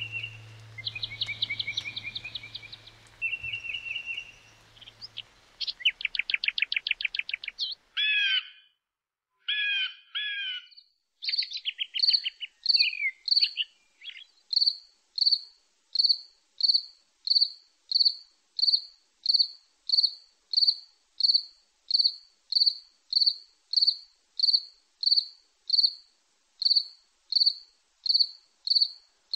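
Bird calls and trills, with a fading low note of music in the first few seconds, then a cricket chirping in an even rhythm, about three chirps every two seconds, from about a third of the way in.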